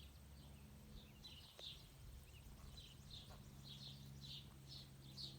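Faint small-bird chirps, short high notes repeating every half second or so, over a low steady hum.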